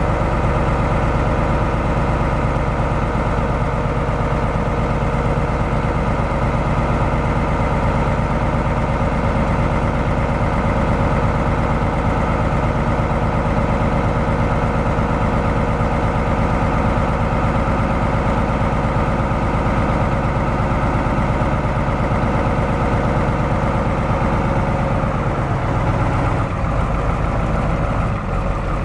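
International DV550 9.0-litre V8 diesel engine of a 1986 International S1700 truck idling steadily. About 25 seconds in, its low note shifts.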